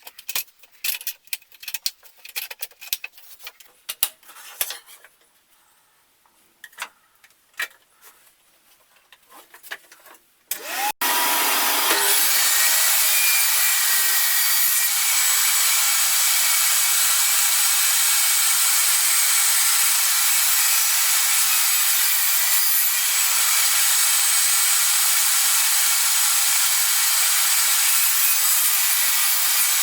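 Scattered small clicks and knocks for about ten seconds, then a loud, steady, hissing machine noise starts suddenly and runs on without change, typical of a power tool or motor.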